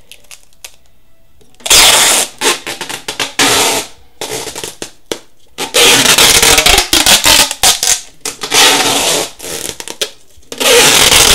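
Adhesive tape being pulled off its roll in repeated loud rips, each a second or so long, as it is wound around and around; the ripping starts about two seconds in.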